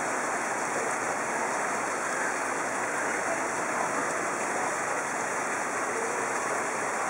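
Steady rushing of water, an even hiss that holds without a break.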